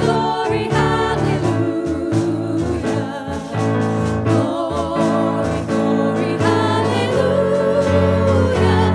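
Worship music: a song sung with vibrato over sustained instrumental accompaniment.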